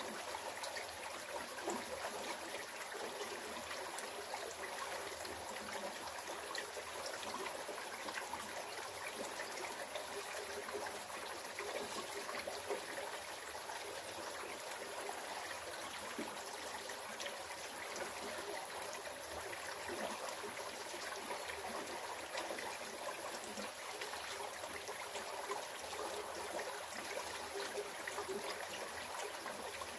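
A small rocky creek trickling steadily as water runs over and under the rocks.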